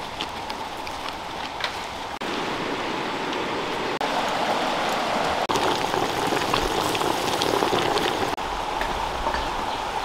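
Fish stew bubbling and sizzling in a wok, a steady crackling hiss that is quieter for the first couple of seconds and breaks off briefly a few times.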